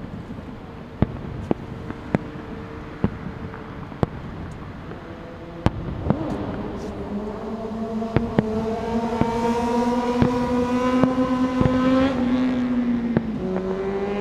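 Distant aerial fireworks shells bursting, a dozen or so sharp bangs at irregular intervals. From about six seconds in, a passing vehicle's engine hum grows louder, then drops in pitch near the end as it goes by.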